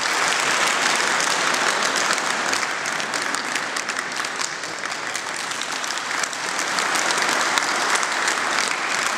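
A seated crowd of karate students applauding: many hands clapping together, easing a little midway and swelling again near the end.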